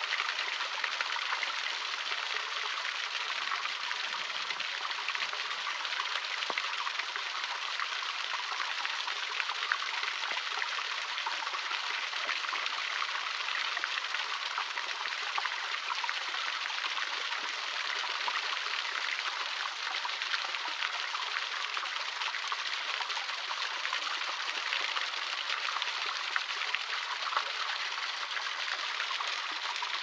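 A small trickling waterfall splashing steadily into a shallow pool: an even hiss of falling water flecked with the patter of drops.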